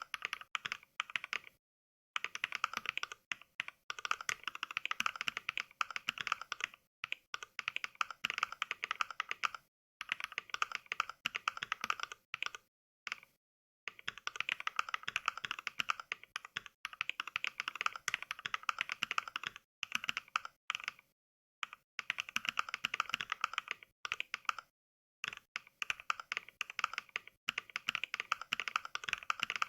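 Simulated mechanical keyboard typing from the Mechvibes NK Cream switch sound pack: quick runs of crisp keystroke clicks broken by short pauses of dead silence.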